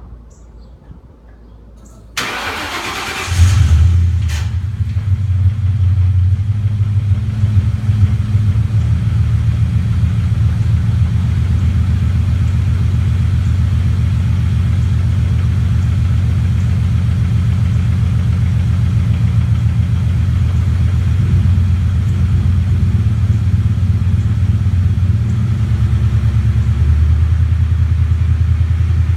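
1998 Ford Mustang GT's 4.6-litre V8 cranked by the starter about two seconds in, catching a second later, then idling steadily with a misfire.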